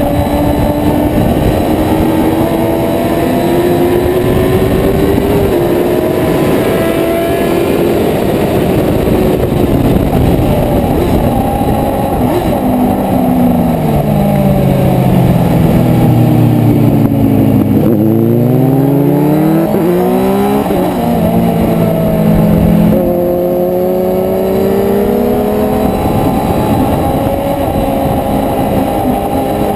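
Onboard sound of a motorcycle ridden hard on a race track: engine under load with wind rush over the microphone. About halfway the revs fall away as it slows, then climb again through two or three quick upshifts before settling into a steady pull.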